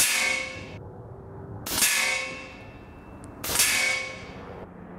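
AGT Uragan 2 .25-calibre PCP air rifle firing three shots about two seconds apart. Each is a sharp report followed by a metallic ring that dies away within about a second.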